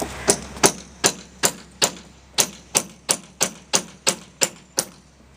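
A run of about thirteen sharp knocks, roughly three a second, that stop near the end.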